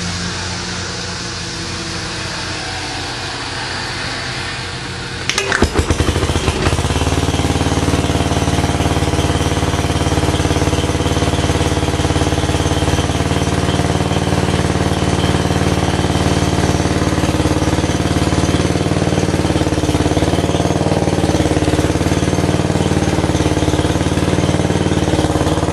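1962 Cub Cadet's single-cylinder Kohler engine, hand-started with a rope because the electric starter is broken, catching about five seconds in with a few rapid sputters and then running steadily on choke after a cold start.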